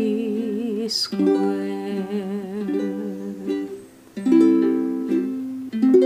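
A woman sings over strummed ukulele chords, holding one long note with vibrato. About four seconds in, the voice stops and fresh ukulele chords are strummed and left to ring.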